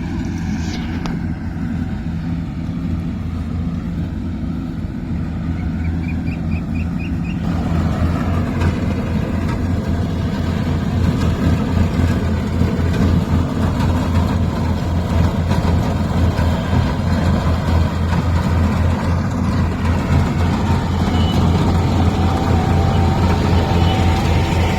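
Diesel engine of a large farm machine running steadily with a low throbbing pulse, growing louder and fuller about seven or eight seconds in.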